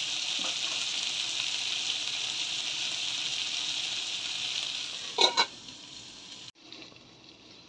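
Sliced okra and onion sizzling steadily as they fry in hot oil in a kadai. About five seconds in, a metal lid knocks a couple of times as it goes onto the pan, and the sizzle turns much quieter under the cover.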